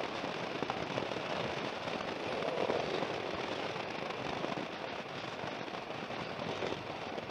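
Wind buffeting a motorcycle rider's microphone while riding, a steady crackling rush mixed with road noise.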